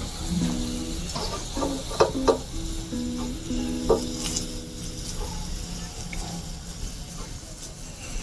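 A hand squeezing and mixing a wet spinach and gram-flour pakora batter in a steel bowl, with a few sharp squelches a couple of seconds in. Under it a steady faint sizzle comes from hot oil in a kadhai, and a soft melody plays in the background.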